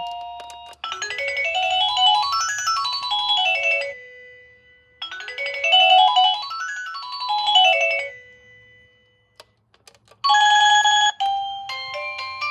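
Electronic doorbell chime playing its stored melodies: a quick run of notes climbing and then falling, played twice, then after a pause a short bright burst of a different tune about ten seconds in.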